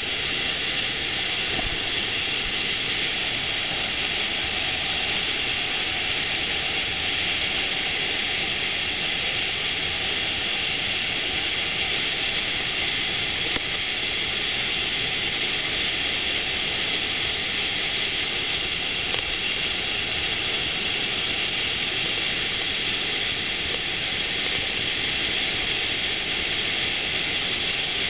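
Steady rush of water from a FlowRider wave machine, its pumped sheet of water racing up the sloped ride surface and breaking into a standing wave.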